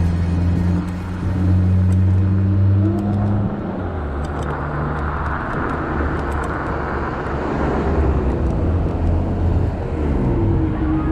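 Road traffic: a motor vehicle engine runs steadily with a low hum, which breaks off with a brief glide about three and a half seconds in. After that, other vehicles pass, with a swell of noise in the middle and falling tones near the end.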